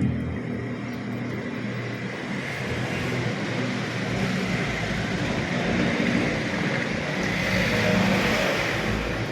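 Panasonic washing machine running with its new capacitor fitted: a steady motor hum with water churning, growing a little louder and brighter about seven seconds in.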